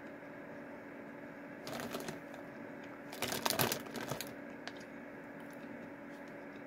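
Crinkly plastic chip bag of Fritos corn chips rustling as a hand digs into it, in two bursts, the second and louder about three seconds in, followed by a few faint clicks, over a steady low hum.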